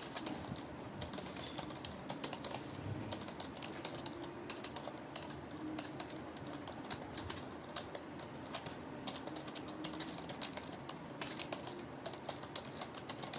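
Computer keyboard keys being typed on steadily, with rapid, irregular key clicks and no pauses longer than a moment.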